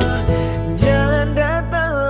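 Indonesian pop ballad: a male voice singing over guitar and band accompaniment.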